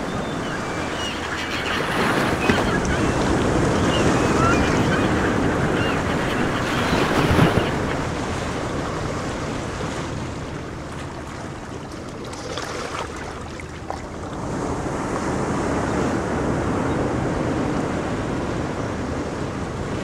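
Ocean surf: a steady rushing wash of waves that swells and eases, louder in the first half, softer a little past the middle, then building again.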